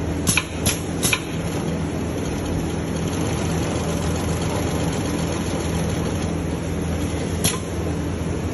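DTS-9365H-380 post-bed luggage sewing machine stitching a straight seam through a layered insole, its motor giving a steady hum. Three sharp clicks come in the first second or so, and one more near the end.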